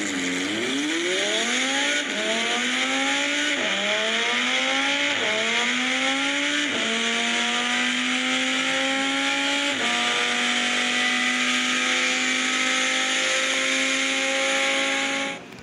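Simulated car engine sound from a speedometer app, accelerating hard: the engine note climbs in pitch and drops back at each of five upshifts, then holds a steady high-speed drone. It cuts off abruptly near the end.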